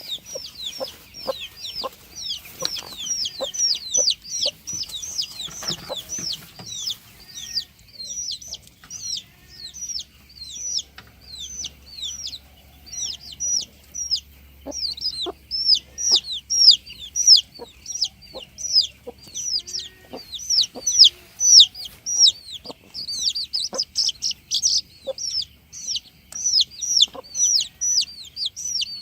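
Chicks peeping: a dense chorus of short, high-pitched falling notes, several a second, with scattered light taps underneath.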